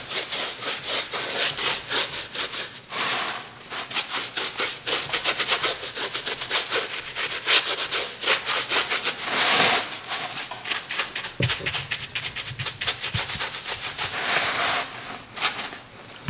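Stiff paintbrush scrubbing orange craft paint onto a textured pumpkin cutout: rapid, scratchy back-and-forth strokes as the paint is worked into the little dimples and creases.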